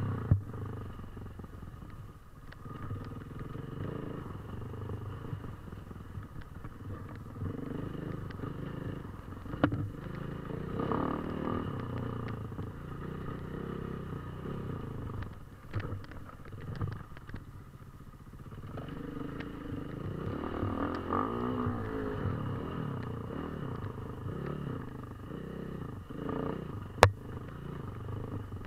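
KTM 450 EXC single-cylinder four-stroke enduro engine running while ridden off-road, its revs rising and falling with the throttle. A few sharp knocks cut through, the loudest near the end.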